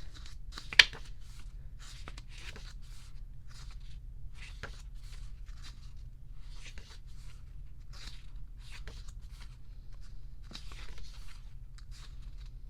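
Pages of a photobook being turned and handled: short paper rustles and brushes every second or so. There is one sharp, loud tap or click about a second in.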